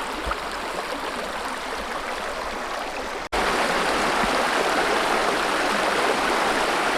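Jamieson River running over rocks: a steady rush of flowing water. About halfway through it cuts to a louder, closer stretch of the river.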